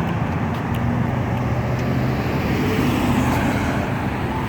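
Road traffic, a steady rumble of car engines and tyres going by.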